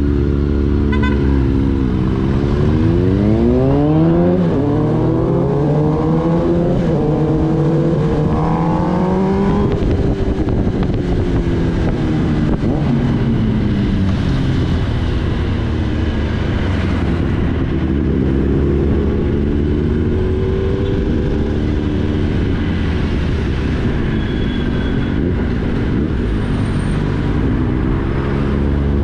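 Sport motorcycle engine pulling away through the gears in traffic, its pitch climbing and dropping back three times with the upshifts, then cruising and easing off and on, over steady wind noise.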